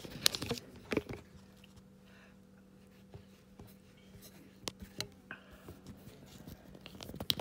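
Handling noise from a phone being moved and reset on its stand, picked up close by the phone's own microphone: a few knocks and rubbing in the first second, then scattered faint clicks over a faint steady hum.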